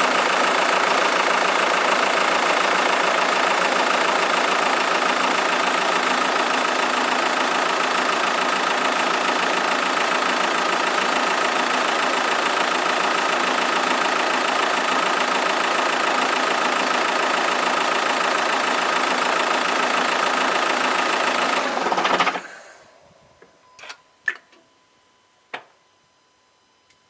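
Audi A3 2.0 TDI four-cylinder diesel engine idling steadily, then shut off about 22 seconds in with a brief shudder as it stops. A few sharp clicks or knocks follow in the quiet. The owner doubts that this shut-off noise is normal and links it to the dual-mass flywheel.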